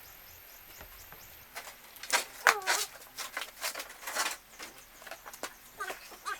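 A few short animal calls, one sliding down in pitch about two and a half seconds in, among scattered sharp clicks and knocks.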